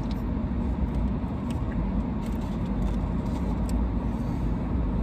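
Steady low rumble of a car idling, heard from inside the cabin, with a few faint light clicks over it.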